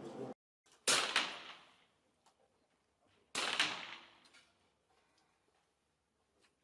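Two sharp bangs about two and a half seconds apart, each ringing out for about a second, followed by a few faint clicks.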